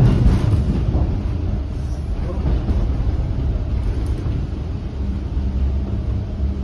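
Bombardier T1 subway car running on the line, heard from inside the car: a steady low rumble of wheels on rail and the running gear. A low steady hum joins about five seconds in.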